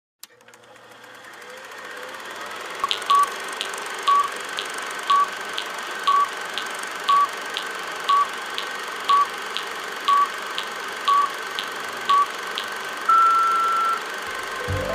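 Film-leader countdown sound effect: a steady hiss fades in, then a short beep sounds once a second with a sharp tick twice a second, ending in one longer, slightly higher beep.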